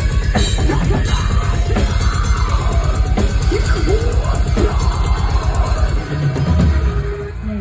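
Metal band playing live, loud, with rapid kick-drum hits driving the song; the drumming drops out about six seconds in, leaving a few low ringing notes as the song ends.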